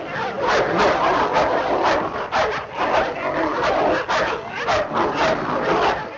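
A dog barking over and over, several barks a second.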